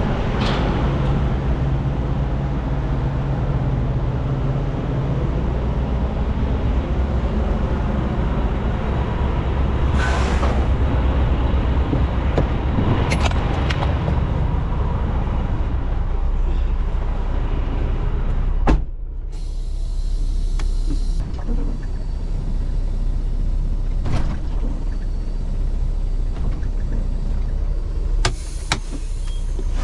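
Semi-truck's diesel engine idling with a steady low rumble, a sharp click about 19 seconds in.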